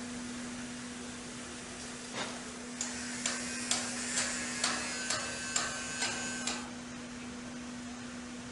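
Factory machinery: a run of about ten sharp knocks, roughly two a second, some with a faint metallic ring, over a steady machine hum.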